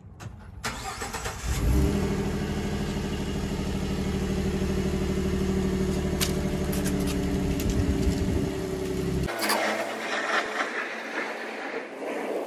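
2015 Ford F-150's 3.5-litre V6 starting up about a second and a half in, then idling steadily. The engine sound stops abruptly about nine seconds in, leaving a thinner hiss.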